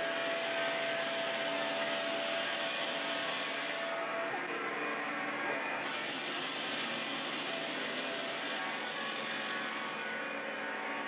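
Small metal lathe running with its chuck spinning a workpiece: a steady motor-and-gear hum with hiss. A thin steady whine on top stops about four seconds in.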